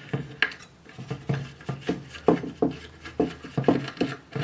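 Irregular clicks, taps and scraping as the circuit board and aluminum case of a car audio amplifier are handled and worked at by hand, a few knocks each second.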